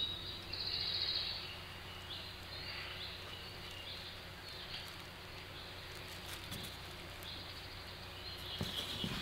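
Outdoor ambience of small birds chirping high and thin over a steady low background hiss. The loudest is a brief burst of high chirping about half a second in, and a few faint knocks come near the end.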